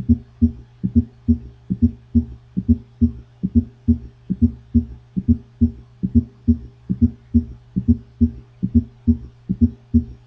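Recorded heart sounds of a quadruple gallop: a steady, repeating run of low thuds in which each beat carries an S4 before S1 and S2 and an S3 after them. This is a rhythm heard mostly in heart failure.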